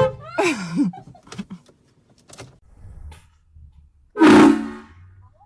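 Handheld air horn blasts: the end of one right at the start, a person's short yell just after it, and another loud blast about four seconds in that fades within a second.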